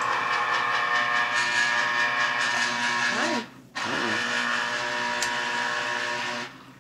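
Electric citrus juicer motor running as an orange half is pressed onto its reamer, a steady whir that cuts out about halfway through, starts again a moment later, and stops near the end.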